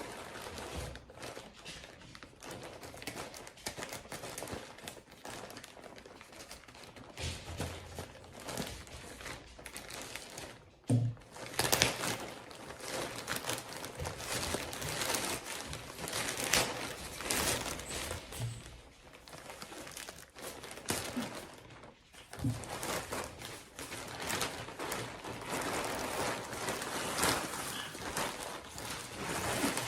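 Plastic packaging crinkling and rustling as a package is worked open by hand, a dense run of irregular crackles that gets louder about a third of the way in.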